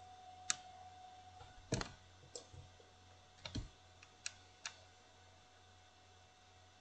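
Faint scattered clicks and light taps, about six over the first five seconds, over a faint steady electrical hum.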